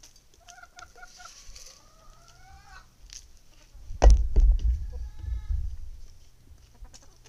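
Chickens clucking: three short notes, then a drawn-out rising call, and a fainter call later. About four seconds in there is a loud low thump followed by a second or two of rumbling.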